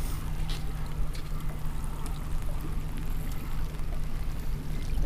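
Water splashing and trickling against a boat, over the steady low hum of the boat's motor.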